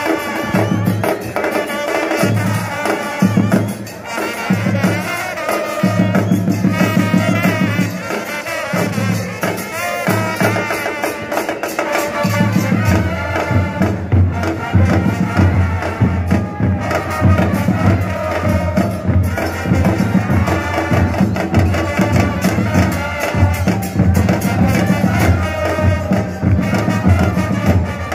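Football supporters' crowd singing a chant together to steady drumming, the drums growing heavier about halfway through.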